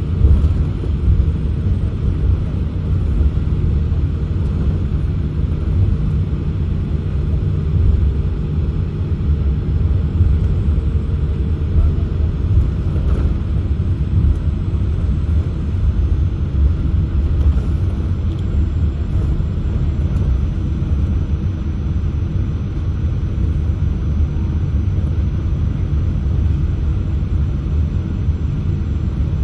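Steady low rumble in the cabin of a Boeing 787-8 Dreamliner taxiing, its engines at idle. A faint steady hum over it fades out about halfway through.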